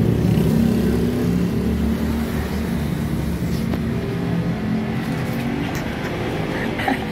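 A motor vehicle engine running steadily, easing off slightly toward the end.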